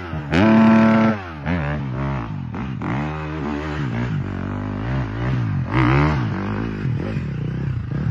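Dirt bike engine revved hard and held high briefly near the start, then rising and falling again and again as the rear wheel spins the bike round in circles on loose sand.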